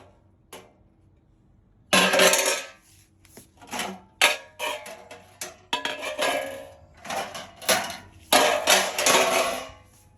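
Steel slotted-angle rack parts and hardware being handled: metallic clattering and clinking in a string of irregular bursts, the longest near the end.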